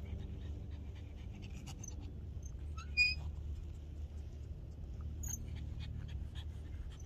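A dog panting steadily, with a short high squeak about three seconds in.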